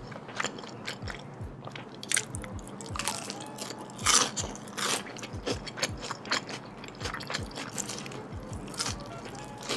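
Close-miked eating: crunchy bites into fried food and chewing, a rapid run of sharp crunches with the loudest bite about four seconds in.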